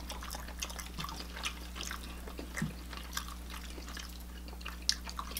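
Chewing and small mouth sounds of two people eating pasta: a scattering of soft ticks and smacks.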